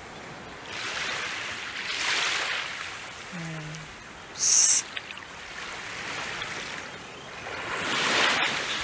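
Small waves washing up on a sandy shore, the wash swelling and fading every few seconds. About three and a half seconds in comes a brief low hum, and just after it a short, shrill high-pitched burst, the loudest sound.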